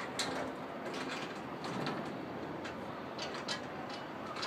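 Cord running through the pulleys of a ceiling-hung clothes-drying rack as it is hauled by hand, with irregular sharp clicks and rattles from the pulleys and frame.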